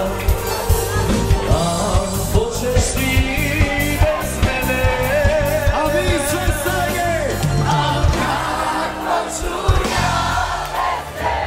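A live band playing upbeat dance music with a steady drum beat and a singer's voice, with a short dip in the beat near the end.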